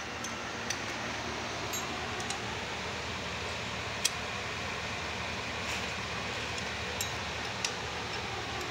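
A few sharp metal clinks of a spanner working bolts on a Piaggio Ape diesel engine, the loudest about four seconds in, over a steady background hiss.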